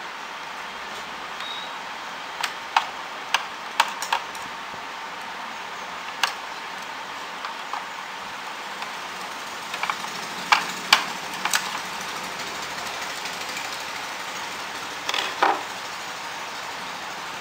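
Scattered sharp clicks and taps of a screwdriver working against the plastic and metal parts inside a stripped-down Epson L-series printer chassis, over a steady background hiss. Near the end a short clatter as the screwdriver is set down on the table.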